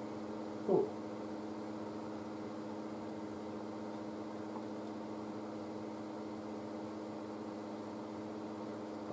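Steady low machine hum made of several fixed tones. About a second in comes one brief pitched sound.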